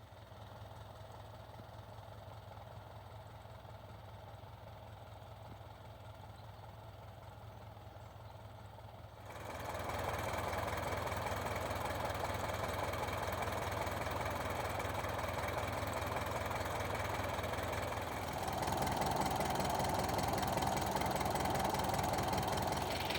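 Engine of a small rice combine harvester running steadily, growing louder in two steps, once about nine seconds in and again near the end.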